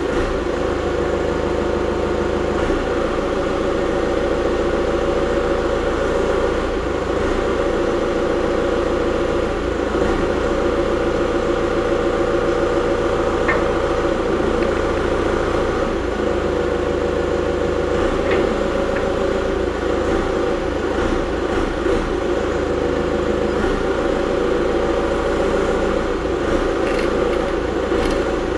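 Diesel engine of a John Deere 120 excavator idling steadily.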